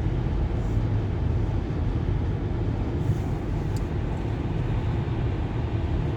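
Steady low rumble of a car driving on the highway, heard from inside the cabin: engine and tyre noise with no change in speed or pitch.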